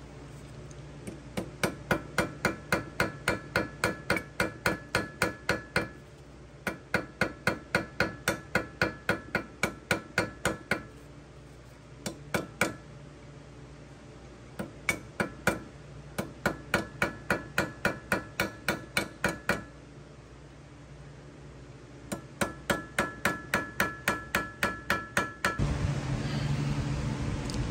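Hammer striking metal in quick, even runs of about three blows a second, each blow ringing briefly. The runs last a few seconds each, with short pauses between them. Near the end a steady machine hum starts.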